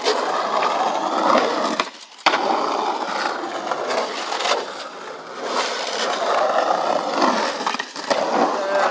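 Skateboard wheels rolling over the rough concrete of an empty swimming pool, a steady grinding rumble with occasional clacks of the board. The rolling breaks off briefly about two seconds in and comes back with a sharp clack.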